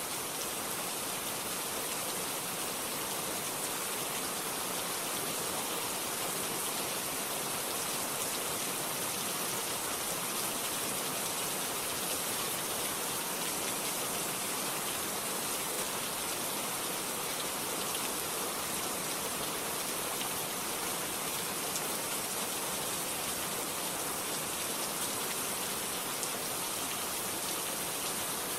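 Steady rain falling, a constant hiss of drops on a surface, with no thunder.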